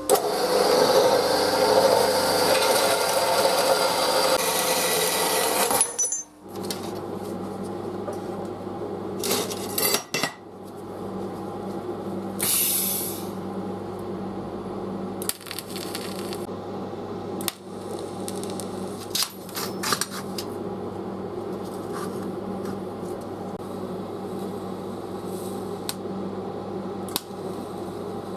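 Metalworking tool noise: a loud, noisy tool runs for about six seconds, then stops. Metal clinks and knocks follow over a steady machine hum.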